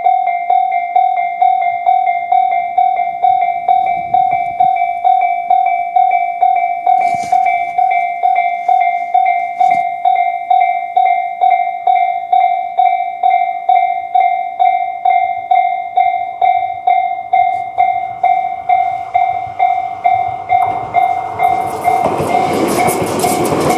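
Japanese railway level-crossing alarm, electronic (the Tobu 'sound C' type), dinging steadily about twice a second. Near the end the noise of a Tobu 200 series limited express train rises over it as the train reaches the crossing.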